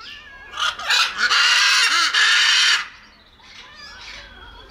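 Macaw squawking: a short harsh call, then a long loud rasping squawk of about a second and a half, followed by fainter calls near the end.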